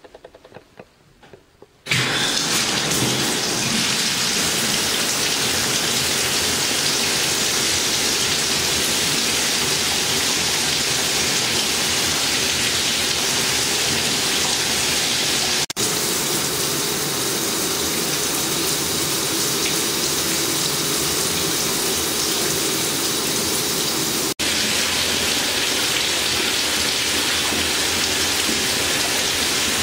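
Handheld shower head spraying water: a steady, loud hiss of running water that starts about two seconds in, broken by two very brief dropouts.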